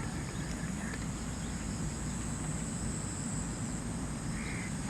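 Outdoor ambience: a steady high-pitched insect drone over a low rumble, with a faint short bird call near the end.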